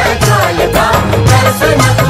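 Music from a Garhwali devotional song (bhajan): a folk-style melody over a steady drum beat.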